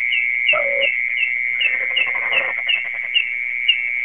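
Continuous high, even insect trill, with a shorter high chirp repeating about two and a half times a second. This is the night sound popularly called the earthworm's song, which is typical of mole crickets. A lower falling call sounds once about half a second in.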